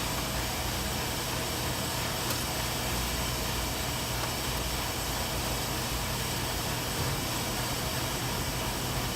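Steady background hum with hiss and no distinct events, apart from one faint tick about two seconds in.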